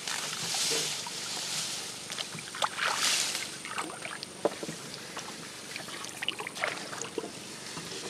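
Water swishing and dripping around a canoe: two longer swishes in the first few seconds, then scattered small drips and light knocks.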